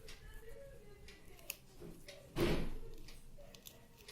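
A single short thump with a brief rustle that fades over about half a second, about two and a half seconds in, with a faint click a second before it. These are handling noises from working on the fan's wiring.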